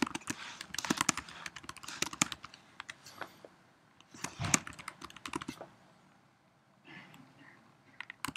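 Typing on a computer keyboard: quick runs of keystrokes for the first two and a half seconds and again from about four to five and a half seconds, then a few fainter clicks.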